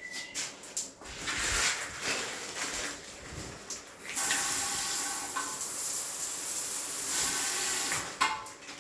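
Steady spraying hiss, loudest and most even for about four seconds from around four seconds in, with a faint whistle running through it.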